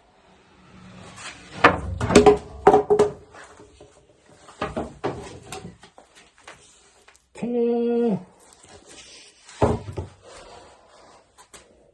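Knocks and clatter of pieces being handled and set down on a workbench, loudest in a quick cluster a couple of seconds in, with a short steady hum lasting under a second past the middle.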